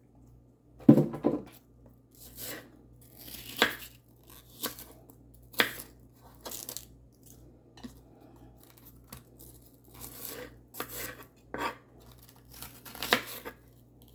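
Knife cutting through crisp bok choy on a cutting board: a dozen or so short crunchy cuts and taps at irregular intervals.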